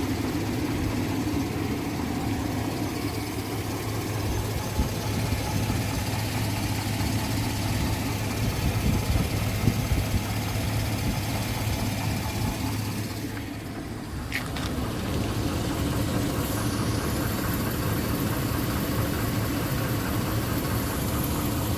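A vehicle engine running steadily, dipping slightly in level about two-thirds of the way through.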